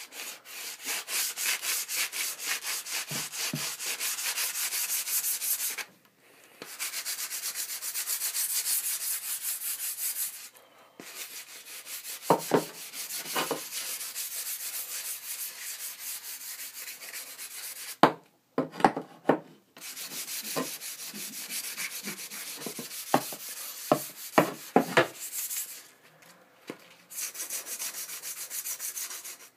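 Sandpaper rubbed by hand along a composite hockey stick shaft in quick back-and-forth strokes, scuffing the finish before spray painting. The sanding stops briefly a few times, and a few sharp knocks come in the middle and later part.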